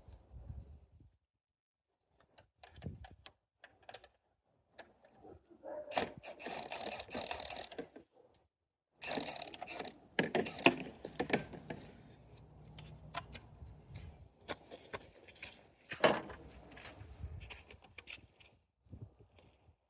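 Hand tools and metal hardware being handled during a repair: scattered clicks and clinks, two stretches of rattling about a third of the way in, and one sharp knock a little past the middle.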